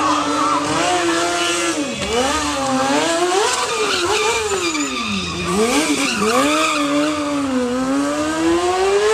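Stunt motorcycle engine revving, its pitch climbing and falling over and over with sharp dips as the throttle is worked through wheelie tricks.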